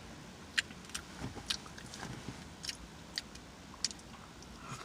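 A person chewing food with open-mouthed smacking: a string of short, wet mouth clicks, about two a second.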